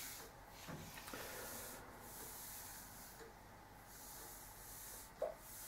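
Faint room tone with a steady soft hiss, broken near the end by one brief soft sound from a man's throat or nose.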